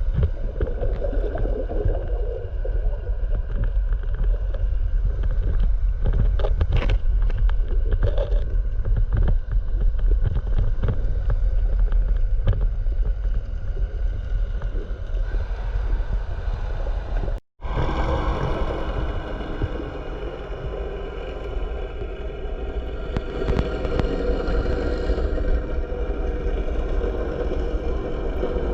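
Muffled underwater noise picked up by a camera in the sea: a steady low rumble of water with scattered faint knocks and gurgles, broken by an abrupt edit about two-thirds of the way through.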